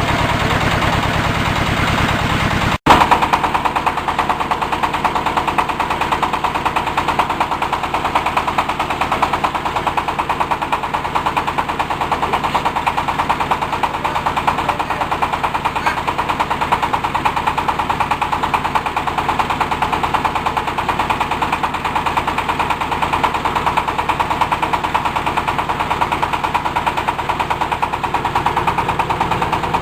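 Fish-feed pellet-making machine running with a fast, steady mechanical rattle; the sound breaks off for an instant about three seconds in and carries on.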